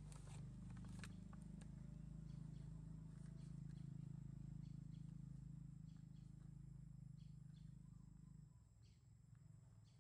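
Faint steady low hum that drops away about eight and a half seconds in, with a few soft clicks and rustles near the start as a wet-wipe pack is opened and a wipe pulled out.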